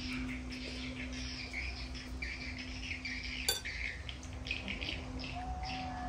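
Small birds chirping in the background, with a steady low hum and one sharp click about three and a half seconds in.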